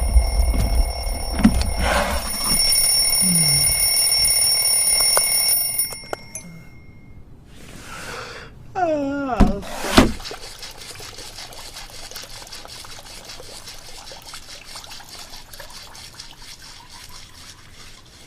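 Alarm clock ringing with steady high electronic tones that cut off about six seconds in. Then comes a sound with falling pitch, a sharp hit about ten seconds in, and a faint steady hiss for the rest.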